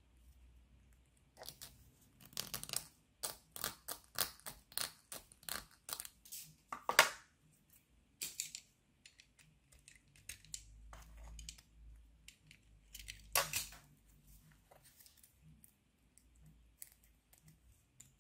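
A small flat metal file scraping back and forth on a 3D-printed plastic part, about two to three strokes a second for several seconds, to deepen a slot that is too shallow. After that come scattered clicks and knocks of the small plastic pieces being handled and pushed together.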